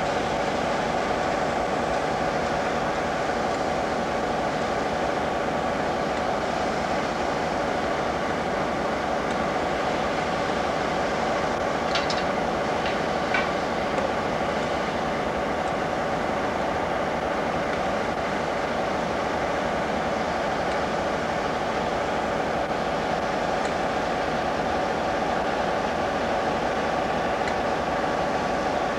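Class 47 diesel-electric locomotive's Sulzer twelve-cylinder engine idling steadily while the locomotive stands. A few light sharp clicks come about twelve seconds in.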